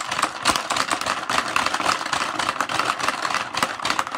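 Plastic Hungry Hippos game clattering fast and continuously as the hippos' levers are hammered, the jaws snapping and the balls rattling across the board.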